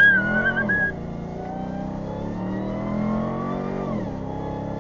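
Vehicle engine under acceleration, its pitch climbing slowly and then falling off sharply about four seconds in as the throttle comes off or it shifts. A short, rising high-pitched tone sounds at the very start.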